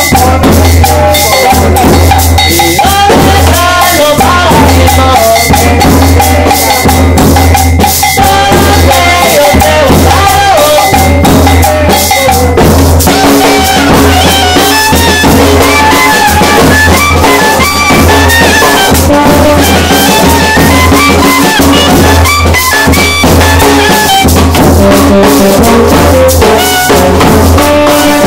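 Loud, continuous band music: a bass drum, a snare drum and a cowbell keep a steady dance rhythm under a melody line.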